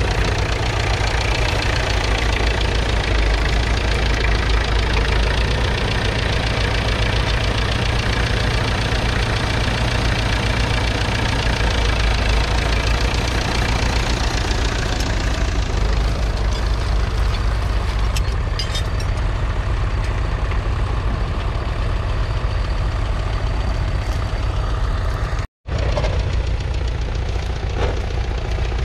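1963 McCormick International B414 tractor's 2.5-litre four-cylinder diesel engine running steadily, with a strong low rumble. The sound breaks off for an instant near the end and picks up again.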